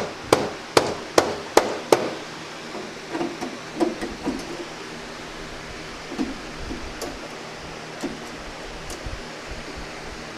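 Five quick hammer blows on metal, about two and a half a second, in the first two seconds, followed by a few lighter clunks while the oil pan is worked off the engine.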